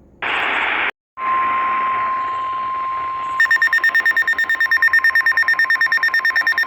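NOAA Weather Radio broadcast: hiss with two brief dropouts, then a steady 1050 Hz warning alarm tone that begins about a second in. A little over three seconds in, a rapid pulsing alarm beep of about eight pulses a second joins on top of the tone. The alarm signals that a new warning is about to be read.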